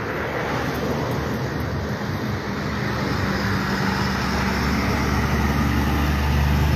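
Road traffic noise, with the low, steady drone of a vehicle engine building up and growing louder from about halfway through.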